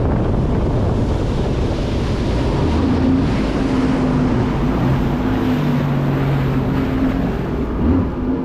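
Sea-Doo RXP 300 personal watercraft's supercharged engine running hard at high throttle in sport mode, with a steady engine tone coming through from about three seconds in. Heavy wind buffeting on the microphone and rushing water spray are mixed in.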